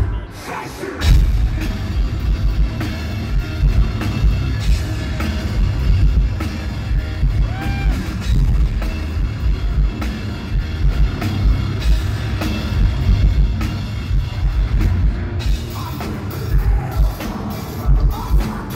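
Live hard rock band playing loud, drum kit driving it; after a brief drop at the very start the full band crashes back in about a second in.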